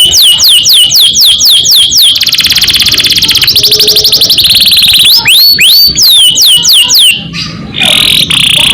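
Domestic canary singing: repeated sweeping whistled notes, about three a second, then a fast rolling trill lasting about three seconds, more sweeping notes, and a held high note near the end.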